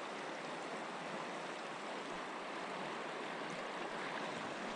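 A mountain stream running, a steady, even rush of water.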